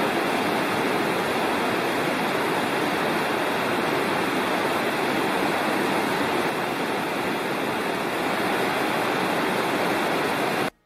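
Big Creek, a Smoky Mountains stream, rushing steadily; the water sound cuts off abruptly near the end.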